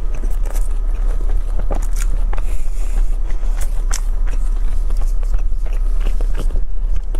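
Close-miked chewing of egg tart: irregular soft crackles of pastry and wet mouth clicks, over a steady low hum.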